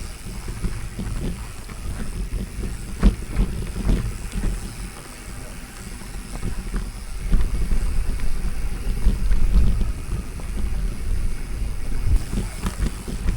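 Wind rumbling on the microphone of a camera carried on a moving mountain bike, with sharp knocks from the bike over rough ground about three and four seconds in.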